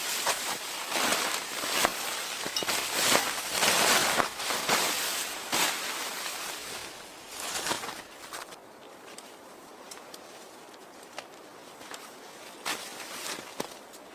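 Crunching, rustling footsteps in deep snow, coming irregularly for about eight seconds. After that it goes quieter, with only a few scattered sharp clicks.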